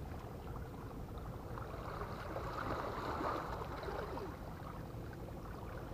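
Steady low seaside ambient noise at a rocky shoreline, swelling slightly in the middle.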